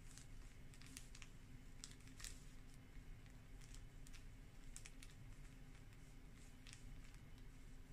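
Faint, irregular small clicks and rustles of fabric being handled and pressed with a small iron along a curved seam allowance, over a low steady hum.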